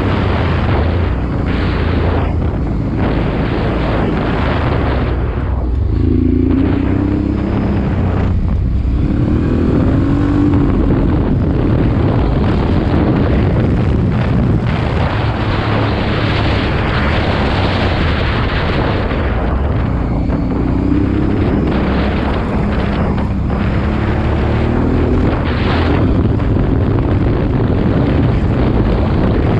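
Honda Transalp 650's V-twin engine running under way, its revs rising and falling a few times, heard under heavy wind rush on the handlebar-mounted camera's microphone.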